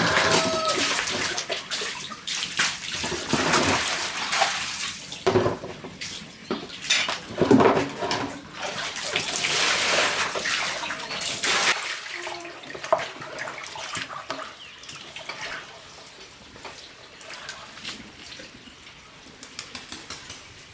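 Water splashing and pouring in irregular surges, busiest in the first twelve seconds and then quieter and more broken.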